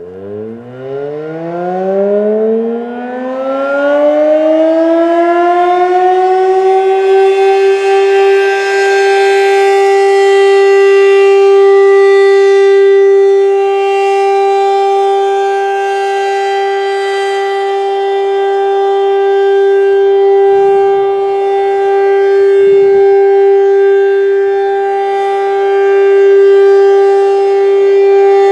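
ACA P-15 outdoor warning siren winding up from a low pitch over about six seconds, then sounding a steady, loud, multi-tone wail with slow swells and dips in loudness. This is the start of a full three-minute test signal rather than a short growl test.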